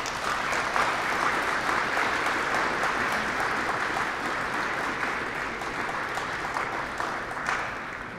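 Audience applauding, dying away toward the end.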